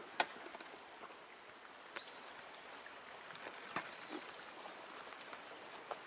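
Footsteps on a dry forest dirt trail strewn with leaves and twigs, a few sharp crunches spaced a second or two apart over a faint outdoor background, with a short high chirp about two seconds in.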